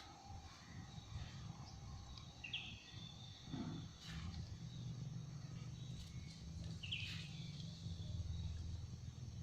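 Outdoor ambience: a low rumble, a steady high insect-like drone, and two short falling chirps about four and a half seconds apart.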